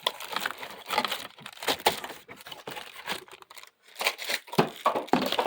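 Packaging crinkling and rustling, with scattered clicks and knocks, as a cordless hand vacuum's attachments are unpacked.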